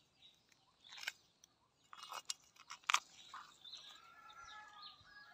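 Metal tongs clicking and scraping against the metal cooking pan as the cooked fish are lifted, a few short clicks with the loudest about three seconds in. After about four seconds a faint, drawn-out rooster crow comes in underneath.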